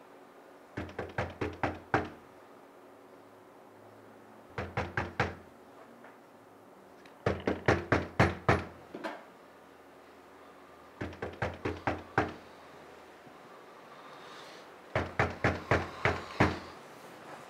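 Knocking on a door: five bursts of quick, sharp knocks, about five knocks a second, each burst a few seconds after the last.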